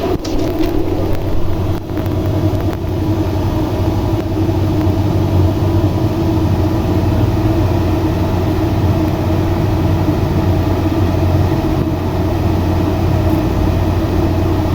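Steady mechanical drone of running machinery with a strong low hum, unchanging throughout.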